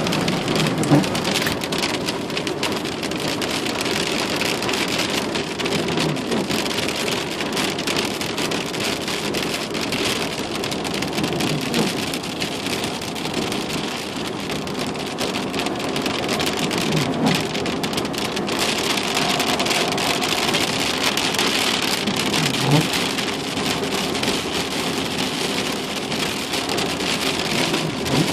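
Steady rain falling in a thunderstorm, an even hiss with no pauses.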